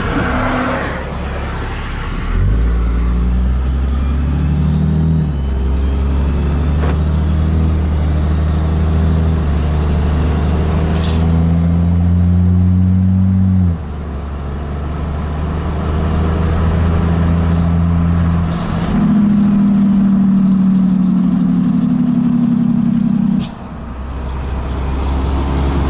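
Diesel pickup engine and exhaust under way with the exhaust brake switched on, heard from inside the cab. A steady drone steps up and down in pitch over long loud stretches, dropping off suddenly about 14 and 23 seconds in.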